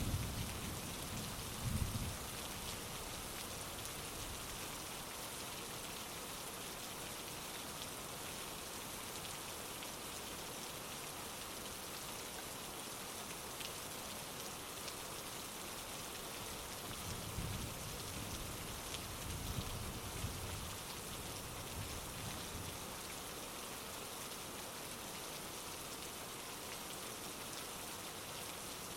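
Heavy rain falling steadily, with low rumbles of distant thunder at the start and again a little past the middle.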